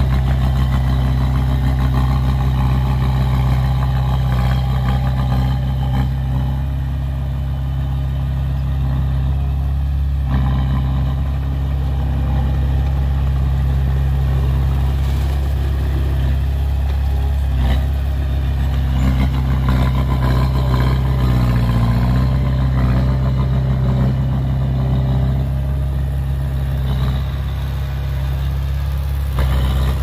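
Komatsu D20A crawler bulldozer's diesel engine running steadily as the dozer pushes soil, its sound a strong, even low drone.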